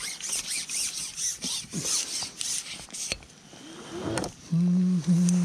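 A man humming a held low note that slides downward at the end, the loudest sound here. Before it, for about three seconds, rapid high-pitched chirping and clicking.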